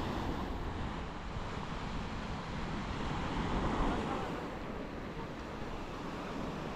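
Steady rushing of wind and surf at the seashore, with wind buffeting the microphone; it swells a little a few seconds in.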